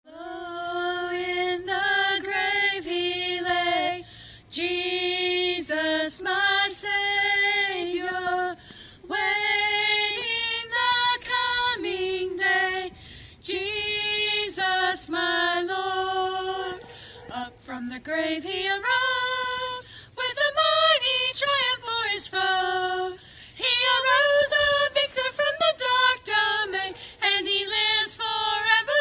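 A woman singing a hymn in a single solo voice, holding long notes in phrases with short breaks between them.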